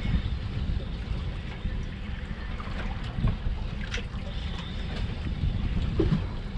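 Wind buffeting the microphone on an open boat at sea, a steady low rumble, with a few brief faint sounds about halfway through and again near the end.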